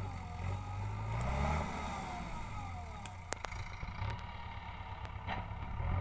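JCB 3DX backhoe loader's diesel engine working under load as the front bucket pushes and levels soil; its pitch climbs about a second in and then eases back, with a couple of sharp clicks about three seconds in.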